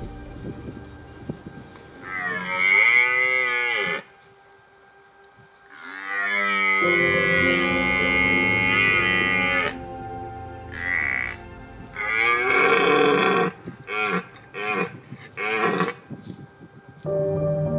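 Red deer stag roaring in the rut: a long roar about two seconds in, a longer one about six seconds in, a short call near eleven seconds, then a run of short roars one after another.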